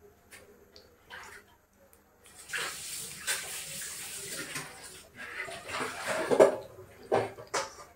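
Water running from a tap for a couple of seconds, then a series of knocks and clatters, the loudest about two-thirds of the way through.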